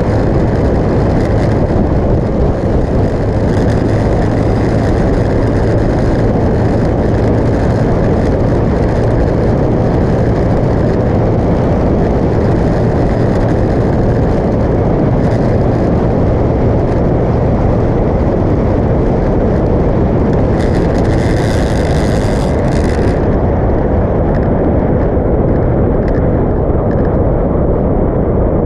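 Motorcycle cruising at steady highway speed. Loud, constant wind rush on the bike-mounted camera's microphone all but covers the engine's low, even drone. A brief higher hiss comes in about two-thirds of the way through.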